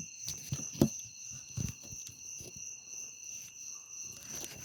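Steady high-pitched chorus of insects, such as crickets, with a few scattered knocks and rustles, the sharpest about a second in.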